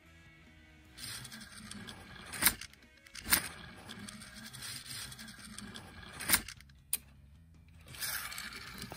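Small plastic PJ Masks Gekko-Mobile toy car rolling and rattling over a mat as it is pushed by hand, with a few sharp plastic clacks in between.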